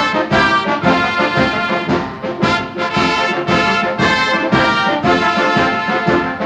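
Orchestral film title music led by brass, playing a theme with a steady beat.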